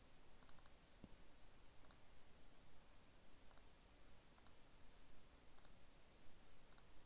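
Faint computer mouse clicks, about six spread a second or so apart, over near-silent room tone.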